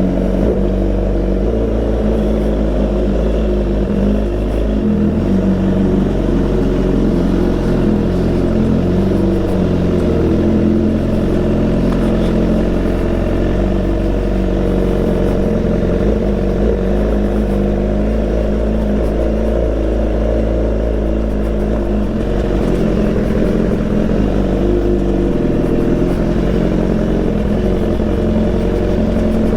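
BMW S1000 XR inline-four engine breathing through a full Akrapovic exhaust, running steadily with a low, even drone. The pitch shifts only a little throughout.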